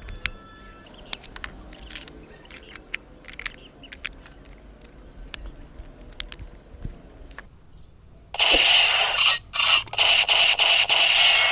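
Small clicks and scraping from a toy gun and its plastic packaging being handled. About eight seconds in, the toy MP5 gun's electronic firing effect starts: a loud, buzzing rattle that breaks off for a moment about a second later and then runs on.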